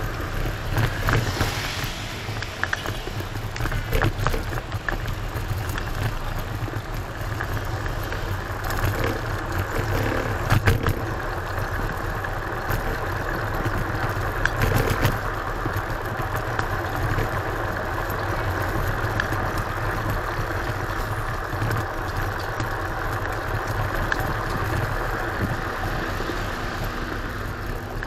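Steady ride noise from an electric kick scooter on the move, picked up by an action camera: wind and road rumble, with a few short knocks from bumps.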